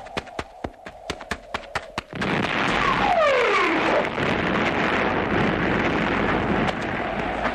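Running footsteps, a quick even patter, cut off about two seconds in by a loud explosion that rumbles on for some five seconds, with falling whistling tones near its start.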